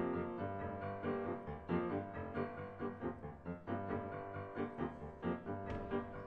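Piano music, a quick, busy run of many closely spaced notes.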